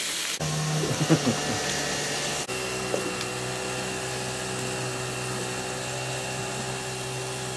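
Small boat outboard motor running steadily, a constant-pitch drone. The sound changes abruptly twice, about half a second and two and a half seconds in.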